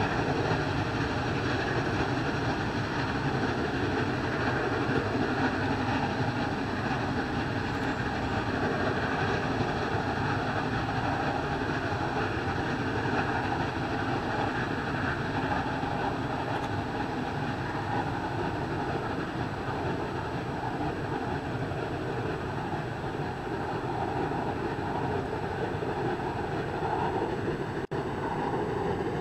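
Steam locomotive working hard under heavy exhaust, a steady dense noise.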